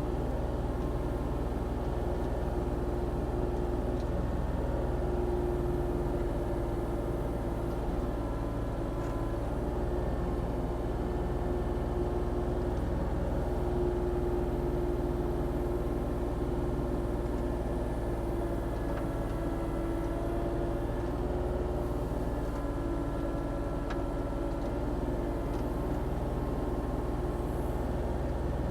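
Volvo ECR40D compact excavator's diesel engine running steadily while the machine works, with a faint higher whine coming and going over the hum.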